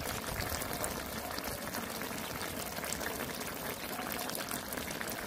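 A pot of stew boiling over a charcoal fire: a steady bubbling hiss peppered with fine crackles.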